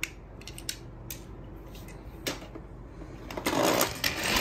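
Light handling noise: a few scattered clicks, then a short rustle about three and a half seconds in.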